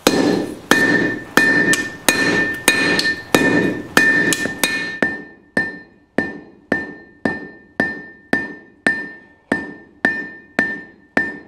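Hand hammer beating a red-hot steel bar on an anvil, a steady run of blows about one and a half a second, each with a clear ringing note from the anvil: drawing down the bar to form the handle.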